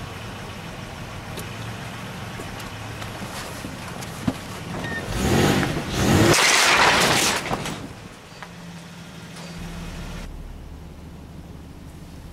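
Car heard from inside the cabin, engine running with a steady hum; about five seconds in, engine and tyre noise swells loudly for a few seconds as the car runs over something in the road, then settles back to a low steady hum.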